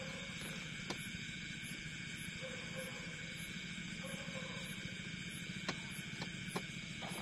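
Night insect chorus: crickets trilling in a steady high-pitched drone, over a low steady hum, with a few sharp clicks.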